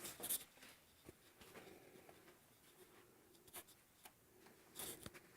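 Near silence: room tone with a few faint short rustles and clicks, one soon after the start, one around the middle and a small cluster near the end.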